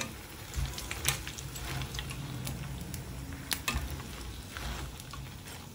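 Hot oil sizzling as poha and potato fingers deep-fry in a kadai, with a few sharp metal clicks of a wire skimmer and a slotted spoon against the pan as the fried fingers are lifted out.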